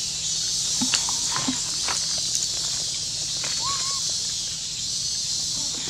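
Steady high-pitched insect drone in forest, with scattered light rustles and steps on dry leaves. Two short calls rise and fall, about a second and a half in and again near four seconds.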